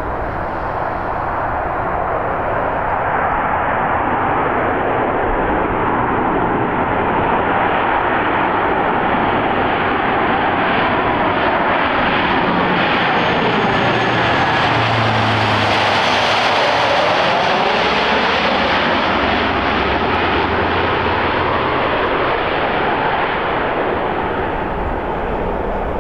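Lockheed C-130J Super Hercules' four turboprop engines droning as it flies low overhead on approach. The sound builds to its loudest and brightest a little past halfway, with the propeller tones sliding down in pitch as the aircraft passes, then eases as it moves away toward the runway.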